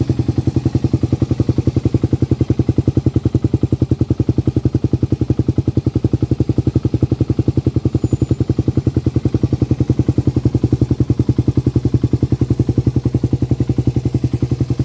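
Suzuki Raider 150's single-cylinder four-stroke engine idling through a gutted stock muffler with an enlarged outlet. It makes a steady, even exhaust pulse with a bassy tone.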